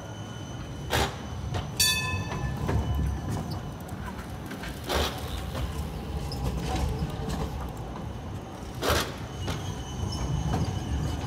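Siemens Combino low-floor tram rolling slowly round a curve: a steady low rumble of steel wheels on the rails, broken by four sharp metallic clanks about 1, 2, 5 and 9 seconds in. The clank at about 2 seconds rings on briefly.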